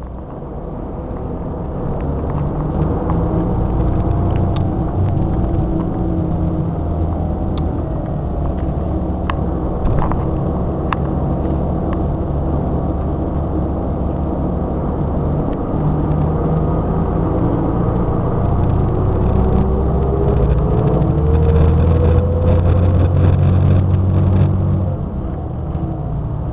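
Scania K94 IB bus's diesel engine running, heard from inside the bus, with a few sharp rattling clicks early on and the engine pulling harder, its pitch rising, for several seconds near the end before easing off.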